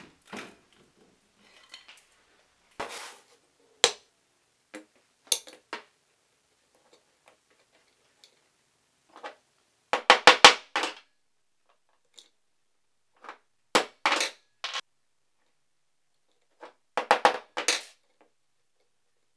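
Hammer striking a steel chain-breaker block on a wooden stump, driving a bicycle chain pin out, in three bursts of several quick taps. Before that, scattered clinks and rattles of the roller chain being handled.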